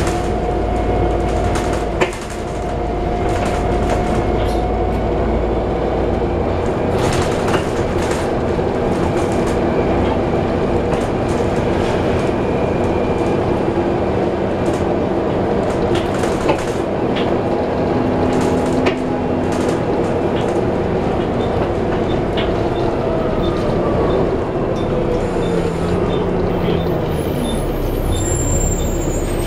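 Plaxton President double-decker bus heard from on board while driving: the engine and cooling fan run with a steady whine that shifts in pitch, under frequent rattles and knocks from the bodywork.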